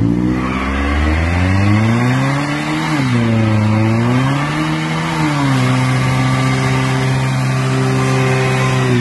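Mercedes-Benz SLK roadster's engine revving hard during a burnout, with the rear tyres spinning in place. The revs climb, drop back briefly twice, then are held high and steady.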